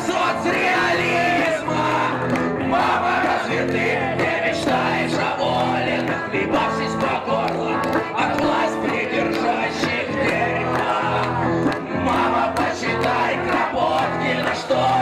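Live punk hardcore band: a male singer shouting the lyrics over electric guitar and a fast, steady beat, with the crowd shouting along.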